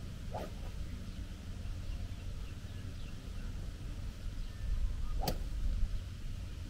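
A golf club swung through the air twice, near the start and about five seconds in, each a brief whoosh. A steady low hum runs underneath.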